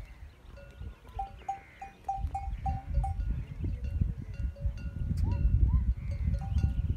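Outdoor sounds around a herd of browsing camels: a quick run of about six short, clear, bell- or bird-like notes about a second in, and scattered short calls. Low rumbling noise grows louder from about two seconds in.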